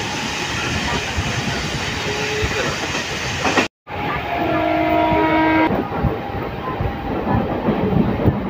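Running noise of a MEMU electric train heard from inside the coach at speed. Just under four seconds in the sound cuts out for a moment, and soon after a train horn sounds one steady note for over a second before the running noise carries on.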